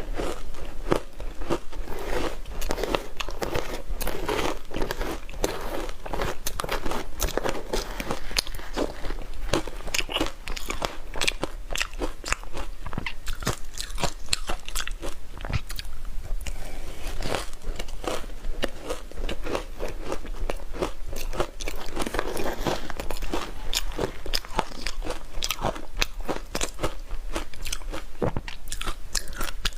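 Close-miked crunching of ice being bitten and chewed: a continuous rapid crackle of fracturing ice throughout.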